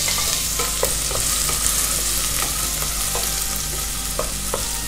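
Soffritto of chopped onion, celery and carrot sizzling steadily in oil and butter in a stainless steel pot, stirred with a wooden spoon, with a few light knocks scattered through it.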